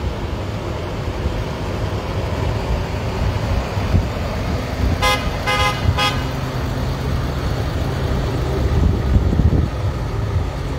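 Three short honks of a vehicle horn in quick succession about halfway through, over the steady low rumble of truck engines in a slow-moving procession.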